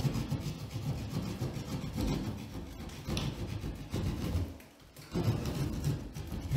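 Hand drywall jab saw sawing a shallow cut through a drywall ceiling in quick back-and-forth strokes, with a brief pause about two-thirds of the way through.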